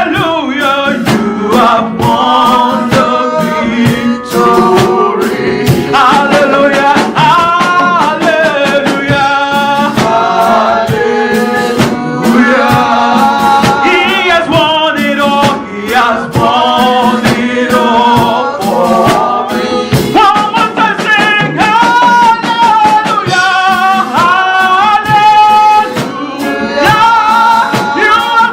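Gospel worship music: voices singing a continuous melody over instrumental accompaniment.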